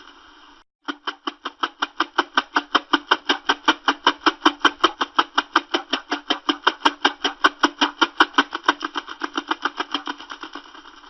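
Electronic 'space sound' rendering of a moon: a rapid, even pulsing of about eight pulses a second. It cuts out briefly just under a second in, then swells and fades again near the end.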